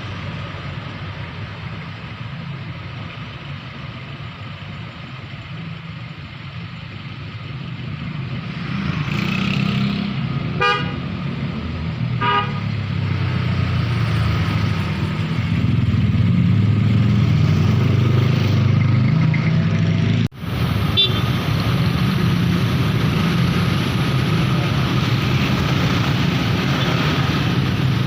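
Road traffic passing: vehicle engines running, growing louder, with two short horn toots about two seconds apart near the middle.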